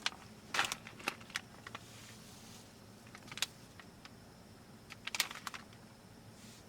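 Scattered small clicks and short rustles of objects being handled, in irregular clusters rather than a steady rhythm.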